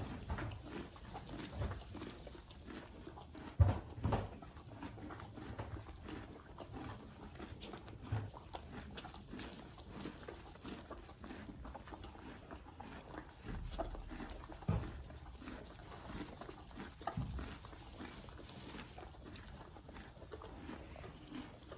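Horses munching fresh Italian ryegrass: a steady run of crunching, tearing chews. A few dull thumps come through, the loudest about four seconds in.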